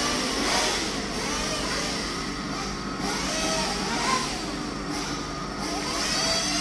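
Several 1/8-scale nitro RC buggy engines revving up and down at once, their whining pitches rising and falling and overlapping.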